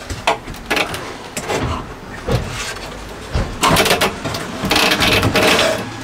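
Knocks, taps and scraping of a white-painted wooden shelf unit being shifted and pressed into place against a van's side wall, with a longer stretch of rubbing and scraping in the second half.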